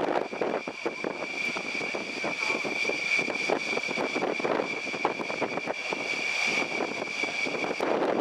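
Mil Mi-24 Hind helicopter in flight: the steady high whine of its twin turboshaft engines over the rapid chop of the rotor blades.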